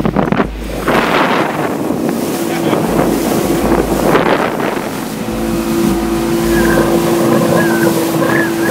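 Motorboat underway at speed: engine running steadily under wind buffeting the microphone and water rushing along the hull, with heavy gusts on the microphone in the first second or so and a steady engine hum coming through from about halfway.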